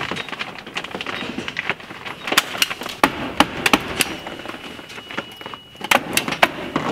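Hammer tacker snapping staples through house wrap into wood framing, a quick irregular string of sharp clicks over the crinkle of the wrap being smoothed and handled.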